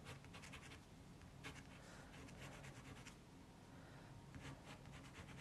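Faint pencil strokes scratching on paper in a few short runs with pauses between, the preliminary sketch for a watercolour portrait being drawn.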